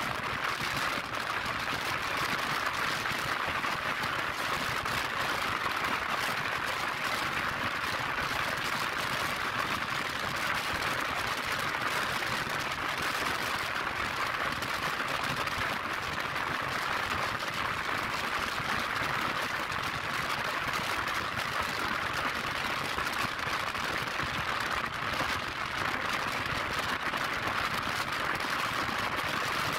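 Steady rushing hiss of wind and road noise on a scooter moving at speed, even throughout, with no distinct engine note.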